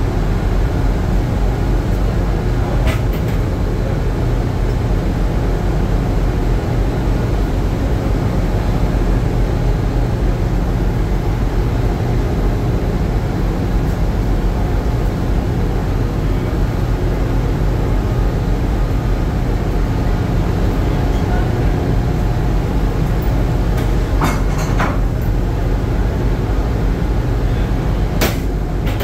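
Steady low drone of a fishing vessel's engines and deck machinery, with a few short sharp knocks: one about three seconds in and a couple near the end.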